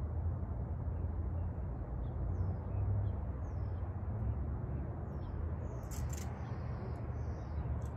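Steady low rumble with a few faint bird chirps over it, and two sharp clicks, one about six seconds in and one near the end.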